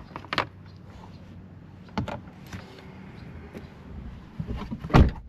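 Scattered plastic clicks and knocks as a phone-mount base is handled and test-fitted against a truck's dashboard, with a sharper thump about five seconds in. A steady low hum runs underneath.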